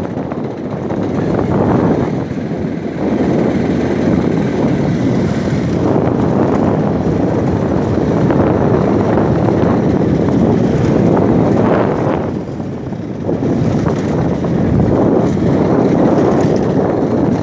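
Wind rumbling on the microphone of a moving motorcycle, mixed with the bike running and its tyres on a gravel road. The level dips briefly about twelve seconds in.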